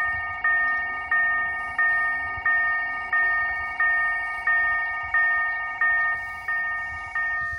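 Railway level-crossing warning bell ringing in a steady rhythm, about three strikes every two seconds, signalling that a train is approaching and the barriers are closing. A second, warbling alarm tone sounds alongside it and stops near the end.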